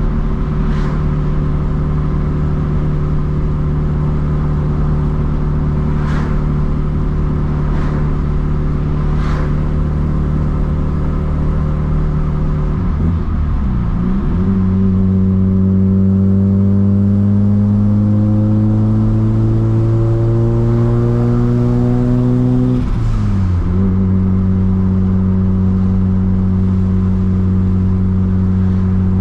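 Rotary engine of a Mazda RX-7 FD3S, a freshly rebuilt streetported 13B with a Holset single turbo and straight-pipe exhaust, running on the road. It cruises steadily, then its revs dip sharply about 13 seconds in. It pulls with the pitch rising slowly for about eight seconds, then dips again about 23 seconds in before settling to a steady cruise.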